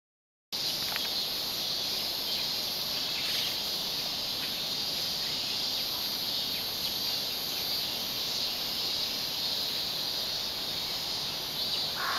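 Steady outdoor insect chorus, an even high-pitched hum that starts about half a second in, with a short louder sound just before the end.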